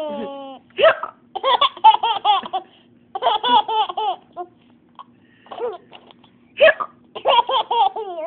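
Baby laughing in repeated bursts of high, rapid laughs, broken by sudden sharp hiccups, one about a second in and another near seven seconds.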